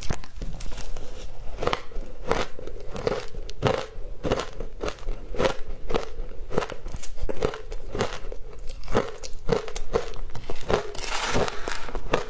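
A person chewing a mouthful of shaved ice coated in matcha powder, close to the microphone: a steady run of crisp crunches, about two to three a second. A short hissy rustle comes near the end.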